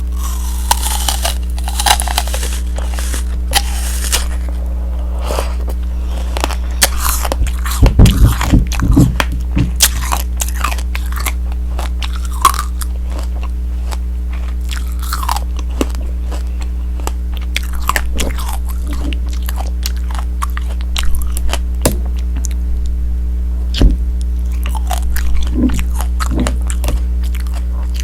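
Close-up biting and chewing of tanghulu: the hard candied sugar shell on the fruit cracks and crunches in scattered bites, the loudest run of crunches about eight seconds in. A steady low hum runs underneath.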